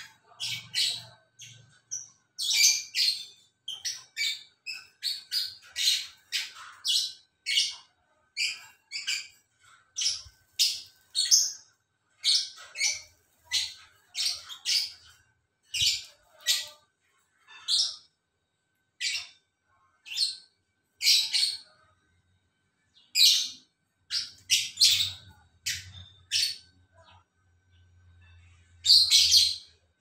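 Caged lovebirds calling: a long run of short, high chirps in quick clusters, with a brief pause about two-thirds of the way through and the loudest burst near the end.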